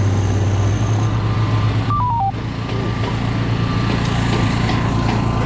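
Steady low drone of heavy machinery on a construction site, with a short electronic beep of four notes stepping down in pitch about two seconds in and a few light knocks later on.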